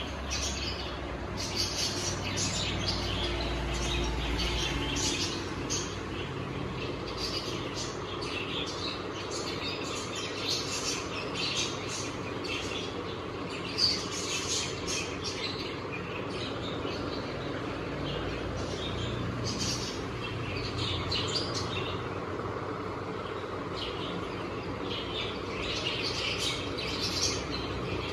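Birds chirping in the background, many short irregular chirps, over a steady low hum.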